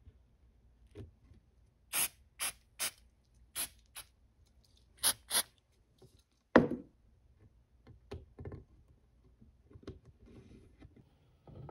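Aerosol CA glue activator sprayed in six short hissing bursts, a group of four then a quick pair, to cure the instant glue at once. They are followed by a single loud knock.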